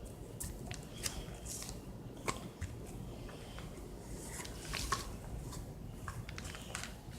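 Play-Doh being handled and kneaded: soft squishing and rustling with scattered small clicks, the sharpest about a second, two seconds and five seconds in.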